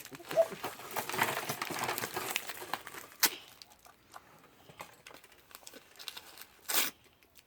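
Plastic toy packaging crinkling and rustling as small surprise-egg toys are handled and unwrapped, busiest in the first few seconds, with two sharp clicks about three seconds in and near the end.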